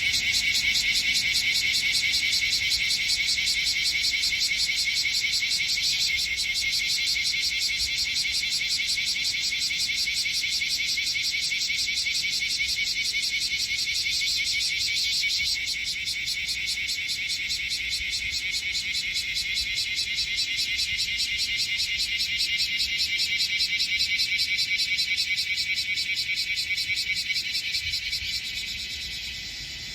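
Chorus of bear cicadas (Cryptotympana facialis), several calling at once in a loud, dense, rapid pulsing that drops a little about halfway and fades near the end.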